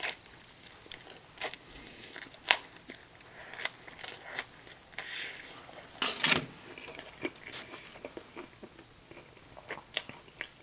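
A person chewing and biting into crunchy pizza close to the microphone: scattered wet clicks and crunches, with a louder crunch about six seconds in.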